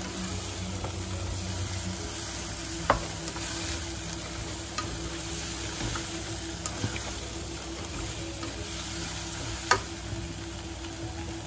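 Eggplant, bitter melon, prawns and chillies sizzling in a wok as they are stirred and tossed with a spatula, with two sharp knocks, about three seconds in and near the end.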